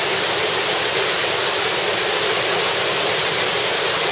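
Steady rushing of a large river waterfall, about 13 m high, in flood: a broad wall of white water pouring over its lip at high water.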